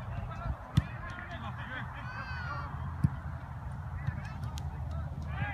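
A soccer ball struck hard on a free kick, a sharp thud about a second in, then a second thump of the ball about three seconds in. Players are shouting and calling out, over steady wind rumble on the microphone.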